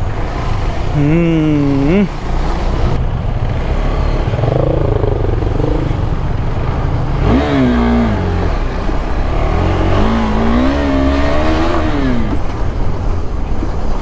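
KTM 390 Adventure's single-cylinder engine revving up and easing off about three times as the motorcycle rides at low speed over a rough shoulder, over a steady rumble of wind and road noise.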